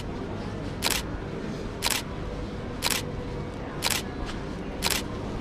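Camera shutter clicking five times, evenly about once a second, each a short sharp snap, over a steady background noise.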